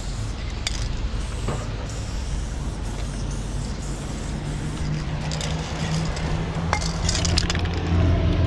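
Aerosol spray-paint can hissing in short bursts onto a truck's side, over a steady low rumble of traffic and a running engine that grows louder near the end. A few light clinks come through.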